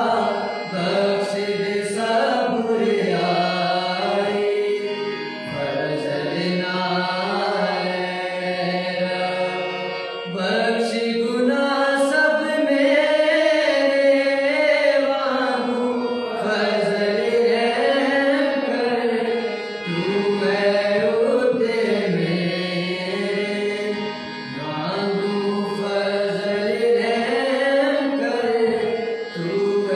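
Devotional church singing in a South Asian style: voices carry a flowing melody that bends up and down without a break. It is the sung psalm between the Mass readings.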